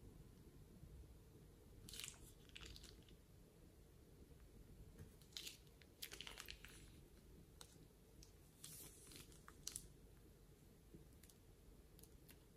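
Faint, short crackling squishes, a handful spread through, of slime being squeezed from a plastic piping bag and spread with the bag's tip.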